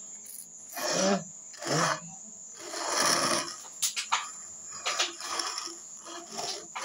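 Close-up eating sounds: short breathy sucking and slurping bursts, spaced about a second apart, with small clicks and rubbing as sauce-covered duck feet are handled near the microphone.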